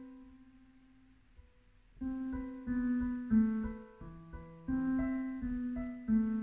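Piano played slowly and freely. A chord rings out and fades over the first second or so, then from about two seconds in a string of held chords and single notes follows, each left to ring.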